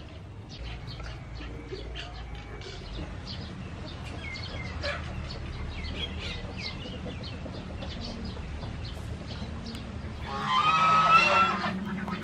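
A chicken calling loudly for about a second and a half near the end, over scattered faint chirps and ticks.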